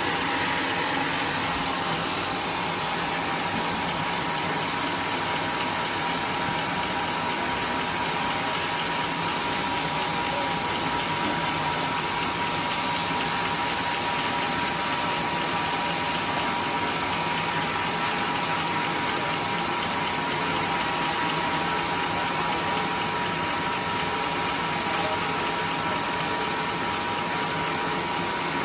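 Steady, unbroken hiss from a running workshop machine, with a thin steady whine riding on it.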